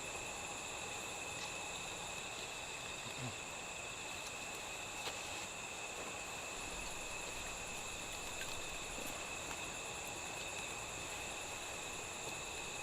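Wood fire burning with a few faint pops and crackles, over a steady high-pitched chorus of insects.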